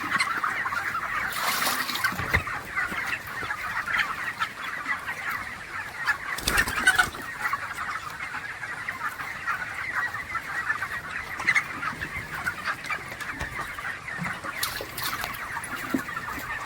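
A large flock of chickens clucking and cheeping continuously in a poultry house, with a few short louder noises among the calls.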